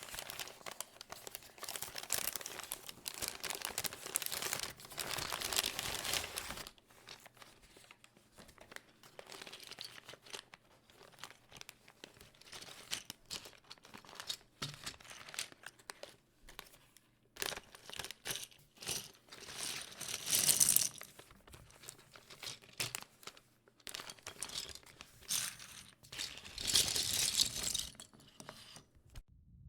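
Plastic packaging crinkling and rustling in irregular handling bursts, loudest over the first few seconds and again in two bursts later on.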